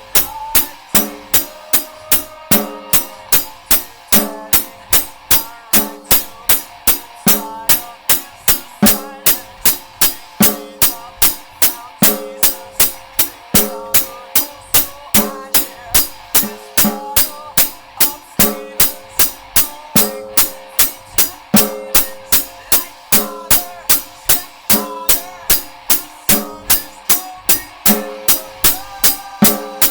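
Rock music: a band with a drum kit keeping a steady, evenly spaced beat over guitar and bass notes.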